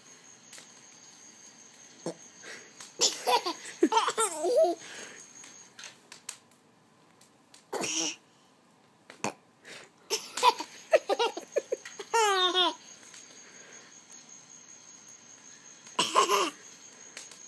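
Toddler laughing and giggling in several separate bursts, one with a quick rippling trill, between quiet stretches.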